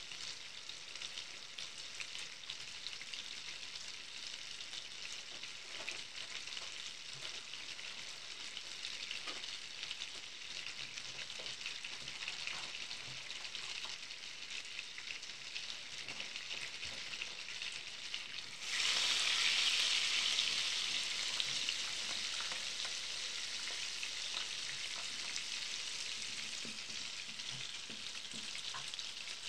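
Butter melting and foaming in a hot frying pan, sizzling with a fine steady crackle. About two-thirds of the way through the sizzle suddenly gets louder, then eases back a little.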